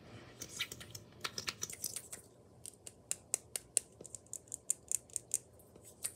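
Small capped stick-shaped object fiddled with in the fingers, its cap and body giving a run of sharp, irregular clicks, closer together in the second half.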